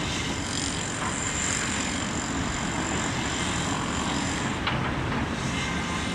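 Heavy diesel earthmoving machinery at work (a tracked excavator, a Cat bulldozer and a dump truck) as a steady mixed engine rumble. A thin high whine stops about two-thirds of the way through, and a single clank follows just after.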